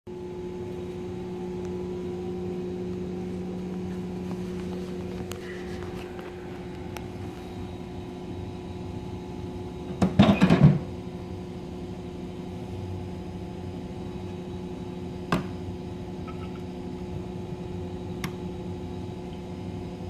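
Coors Light beer-can dispenser refrigerator humming steadily, its tone easing a few seconds in. About halfway through, a brief loud rattling clatter as a hand works the dispense knob, and a single sharp click a few seconds later.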